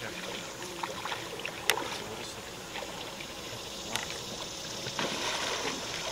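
Lake water sloshing and lapping, with two sharp clicks: a loud one about a second and a half in and a second one about four seconds in.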